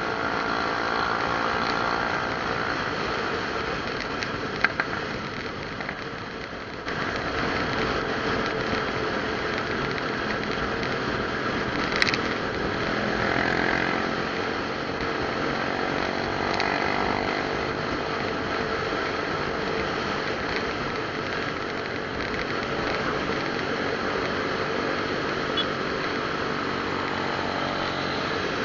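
Motorcycle engine running steadily with wind and road noise, heard from the moving bike. It eases off for a moment about six seconds in and picks back up, with a short click about twelve seconds in.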